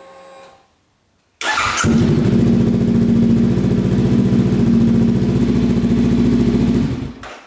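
Honda CBR500R's parallel-twin engine is cranked on the starter and catches about a second and a half in. It then idles steadily and loudly through a cheap aftermarket KO Lightning slip-on exhaust with its dB killer fitted, and is switched off near the end.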